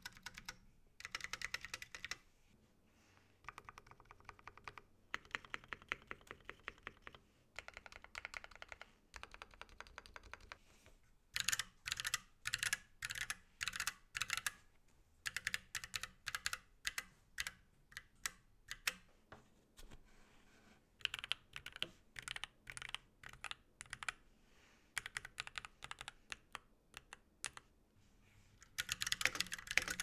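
Typing on a KBD8X MKII tenkeyless mechanical keyboard in its nearly stock build: brass plate, no foam, Holy Panda tactile switches, stock Zeal stabilizers and PBT keycaps, which the builder says has some spring ping. Keystrokes come in runs separated by short pauses, with a faster, louder run when both hands type near the end.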